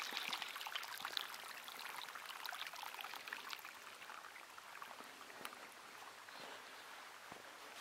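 Mineral spring water trickling and splashing down a narrow channel cut in the travertine rock, fading gradually.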